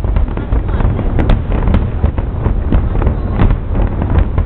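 Fireworks display: scattered sharp bangs and crackles over a constant low rumble.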